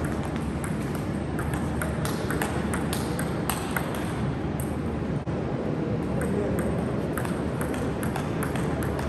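Table tennis ball clicking sharply off rubber bats and the tabletop in a rally, irregular ticks every fraction of a second over a steady low hall hum.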